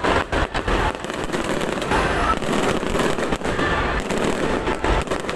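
Fireworks going off in a rapid run of sharp bangs and booms, thickest in the first second, then more scattered bursts over a continuous low rumble.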